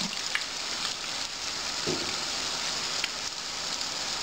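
Corn fritters (buñuelos) deep-frying in a wide pan of hot oil: a steady bubbling sizzle like rain, with a couple of faint clicks.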